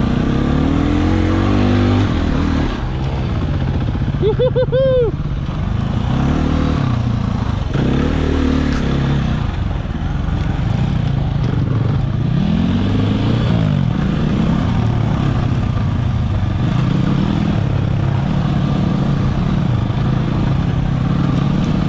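Husqvarna 300 two-stroke dirt bike engine revving up and down as it is ridden along a rough trail, its pitch rising and falling again and again.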